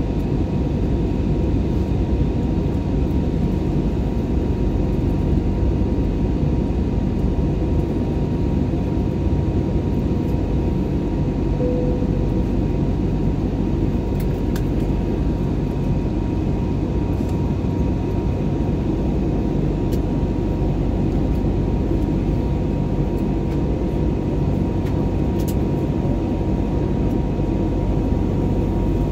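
Steady roar of an airliner cabin in flight: engine and airflow noise with a faint steady hum running through it.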